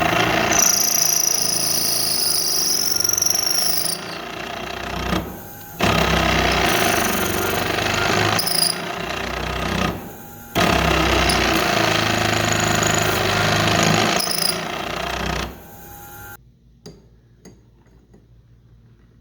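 A power tool running loudly in three long runs, with two brief pauses and a stop about 16 seconds in, followed by a few faint clicks.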